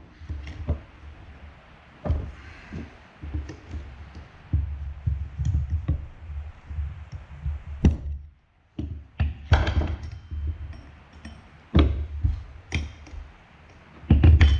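Screwdrivers prying and levering at the metal side cover of a hoverboard hub motor: irregular sharp clicks and knocks of steel on metal, with dull thumps as the wheel shifts on the wooden bench.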